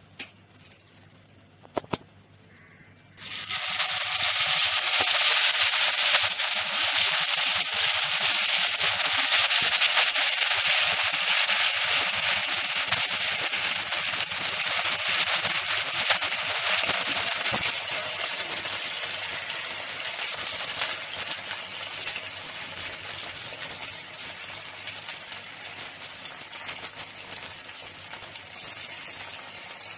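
Marinated chicken pieces going into hot oil in a nonstick kadai, setting off loud sizzling and crackling about three seconds in that slowly dies down as they fry.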